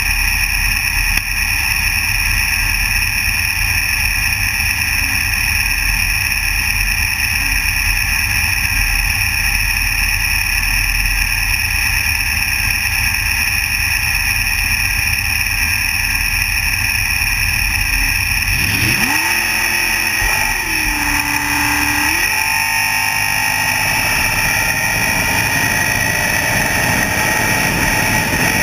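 Super Comp dragster's V8 engine, heard from on board, idling loudly with a low rumble at the starting line. About two-thirds of the way through it revs hard for the launch: the pitch rises sharply, holds, dips briefly, then climbs again as the car pulls away down the track.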